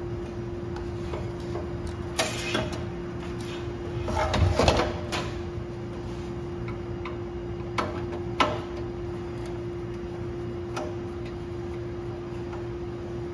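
Scattered clicks and knocks of parts and tools being handled, with a louder cluster of knocks about four to five seconds in, over a steady mechanical hum that carries one constant tone.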